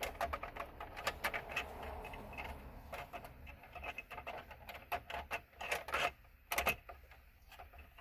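Screwdriver turning screws into the ignition switch housing under a steering column: a run of irregular clicks and light scraping, with a few sharper clicks about two-thirds of the way through.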